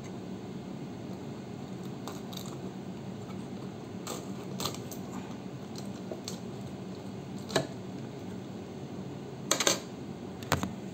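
Scattered light clicks and knocks over a steady low hum. The loudest knock comes about seven and a half seconds in, followed by a quick cluster of clicks near the end.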